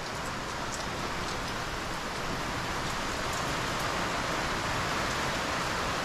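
Heavy rain pouring down: a steady hiss with scattered drop ticks, growing slightly louder toward the end.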